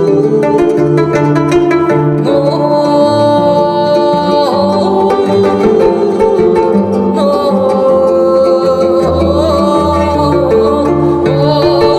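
Live ensemble music: plucked zither-like strings under held, gliding melody lines from a bowed string instrument, playing continuously.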